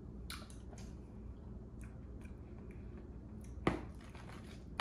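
Faint chewing and mouth sounds as someone tastes a creamy deviled-egg filling, then a spoon knocks sharply against a plastic mixing bowl about three and a half seconds in.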